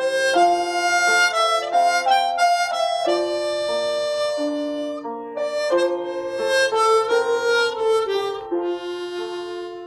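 Harmonica playing a slow melody, with several notes sounding together as held chords.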